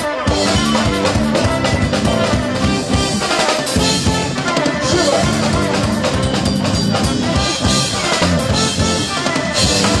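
A rock band playing live, with a steady, driving drum-kit beat under the full band.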